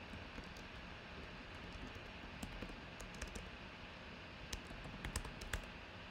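Computer keyboard typing: scattered sharp keystrokes in two short runs, about two and a half and five seconds in, over a steady low hiss.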